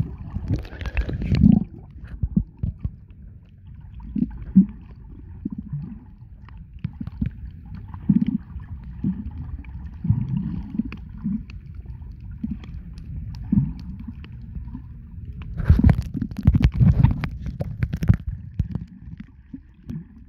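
Underwater water noise on a submerged camera: dull, low gurgling and sloshing as it moves through the water, with a stretch of sharper splashing near the end.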